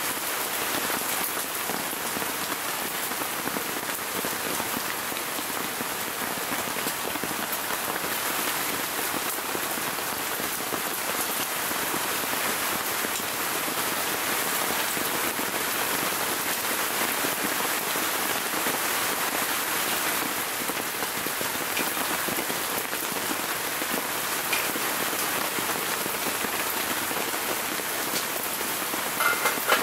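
Heavy rain falling steadily on a tent, heard from inside. There are a couple of light knocks near the end.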